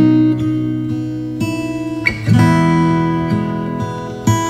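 Background music: an acoustic guitar strumming chords, each left to ring before the next is struck every second or two.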